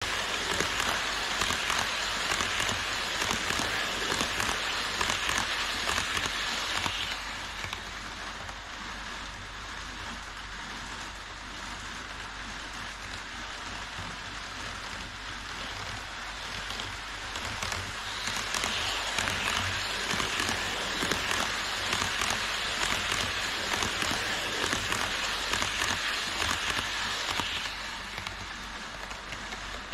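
HO scale model train, an E5 series Shinkansen, running on Kato Unitrack viaduct track: a steady fine rattle and whir of wheels on rails and motors, loudest as it passes at first, then fading after about seven seconds. The rattle swells again for a long stretch past the middle and drops away near the end.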